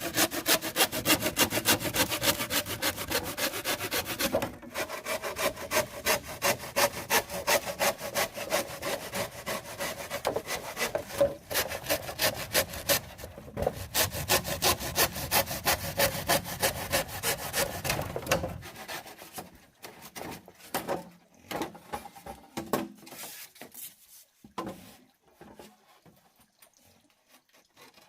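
Rapid, evenly repeated rasping strokes, about three a second, like a hand saw or rasp working material; they run steadily until about two-thirds through, then thin out into slower, scattered strokes.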